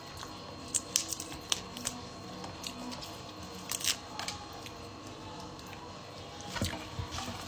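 Scattered soft clicks, taps and squishes of a fish being picked apart by hand, flesh pulled from the bones, with a duller knock near the end.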